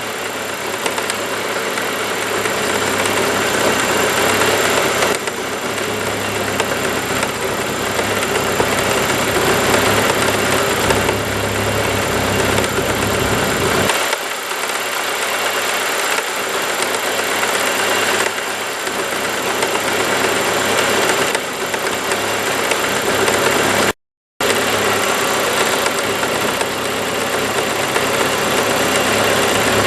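1997 Mercury Mystique's engine idling steadily, heard close up under the open hood during a vacuum-leak check with a water spray bottle. The sound cuts out for a split second about two-thirds of the way through.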